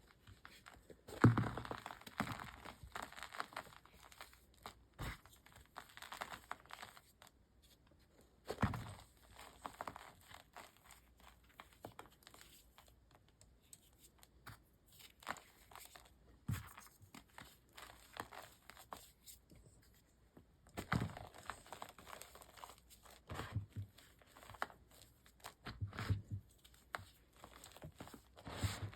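Reformed gym chalk crushed by hand, with dry crunching and crackling in irregular bursts. The loudest crunch comes about a second in, with other strong ones later.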